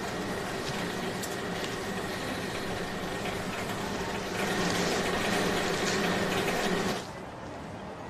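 Steady hum and background noise of an airport terminal, with a faint machine-like drone. It grows louder for a couple of seconds from about halfway in, then drops off sharply near the end.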